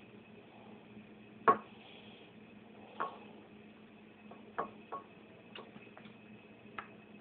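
About six sharp, irregular clicks and taps from a cat batting at a small hard object on the floor, the loudest about a second and a half in, over a faint steady hum.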